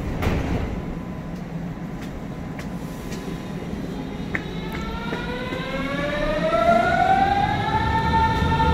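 Berlin S-Bahn electric train pulling away from the platform. About halfway through, its traction motors start a rising whine that climbs in pitch and loudness as it accelerates, then levels off into a steady tone near the end over a low rumble.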